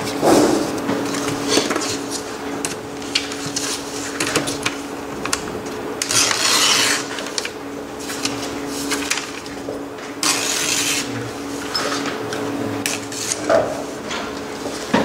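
Sheets of graph paper being handled and rubbed on a desk, with two short rustles about six and ten seconds in and a few light taps, over a steady low hum.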